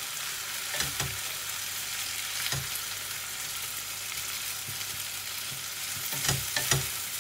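Chicken thighs and onions sizzling in oil in a non-stick pan, frying without added water, with a few short scrapes of a wooden spatula against the pan as the pieces are turned: about a second in, again a little later, and twice near the end.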